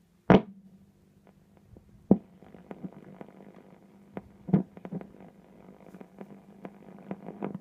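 DKE 38 tube radio's loudspeaker giving a steady hum with irregular crackles and pops while it is being tuned, before a station comes in. A sharp click comes about a third of a second in.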